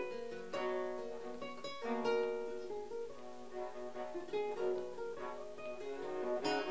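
A baroque viola and a plucked string instrument play a traditional-style folk tune together: the viola holds long bowed notes while the plucked strings strike chords and notes that ring and fade.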